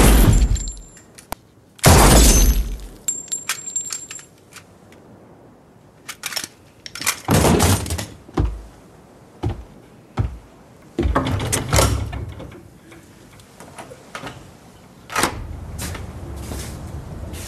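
Film sound effects of violence: two very loud sudden impacts about two seconds apart, then a scattering of smaller bangs, knocks and crashes with breaking sounds. A low drone comes in near the end.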